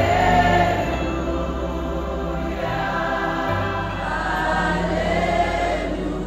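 Gospel worship music: many voices singing held notes together, choir-style, over instrumental backing with steady low bass notes.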